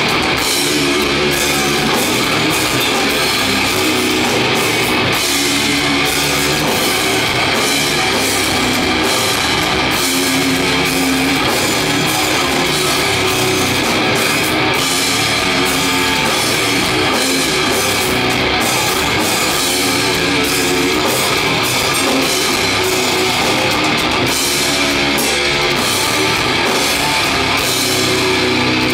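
Live sludge-metal band playing loud, with heavily distorted electric guitars, bass and a pounding drum kit with cymbal crashes, heard from the crowd.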